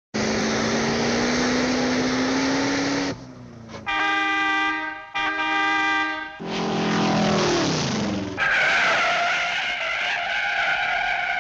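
A run of cartoon car sound effects. An engine runs with its pitch slowly rising, a horn gives two long honks, a tone glides down in pitch, and a high tire screech ends the run.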